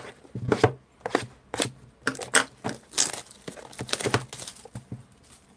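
Clear plastic shrink-wrap being torn and crinkled off a cardboard trading-card box, a quick run of sharp crackles and ticks.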